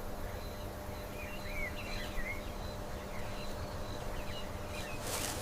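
Faint natural ambience: scattered short bird chirps and a thin steady insect-like tone over a low steady hum.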